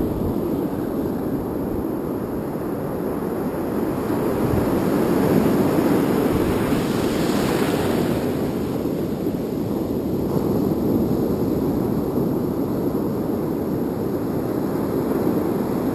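Wind buffeting the GoPro microphone over the wash of breaking surf, a steady rushing noise that swells for a couple of seconds near the middle.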